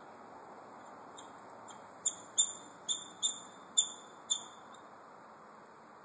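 A series of short, high-pitched animal chirps: two faint ones, then six loud ones about half a second apart, over a steady hiss.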